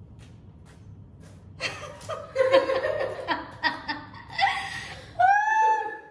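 Men laughing, breaking out about a second and a half in, with a drawn-out high-pitched voiced cry near the end.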